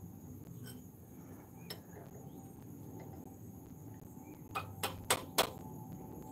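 Faint metallic clicks and clinks of a disc brake pad being worked into its caliper bracket clips, with a quick run of four sharper knocks about four and a half seconds in.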